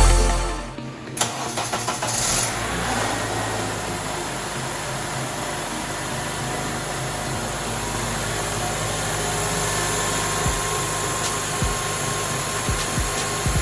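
Honda Element's 2.4-litre four-cylinder engine starts about a second in and then idles steadily. Its exhaust valve clearances have just been adjusted, curing the rough idle.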